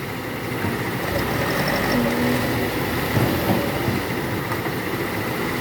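Heavy diesel engine running steadily.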